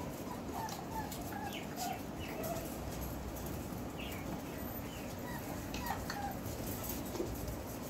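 Four-week-old Belgian Malinois puppies making many short, high squeaks and whimpers scattered throughout, with light clicks and taps of small paws and toys on a tile floor.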